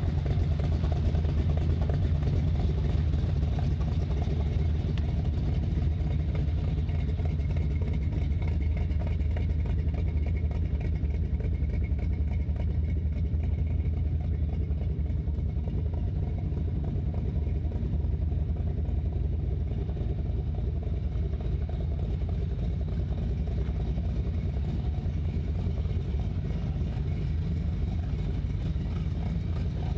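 1948 Ford F-1 street truck's V8, fed by three two-barrel carburettors, running steadily at low speed as the truck drives slowly away.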